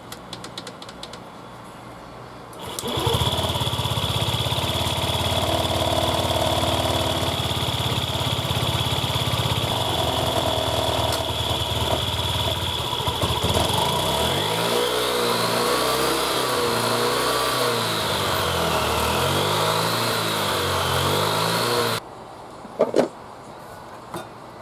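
Honda Gyro Canopy TA03 scooter's small single-cylinder engine started, idling steadily, then revved up and down several times before being switched off suddenly. It runs with the bearing noise fixed. A few light clicks come before the start and after the stop.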